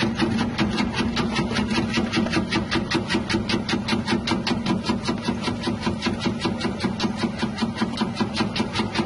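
Electric cassava slicing machine with a 180-watt motor running: a steady motor hum under a regular, even clatter of about five strokes a second.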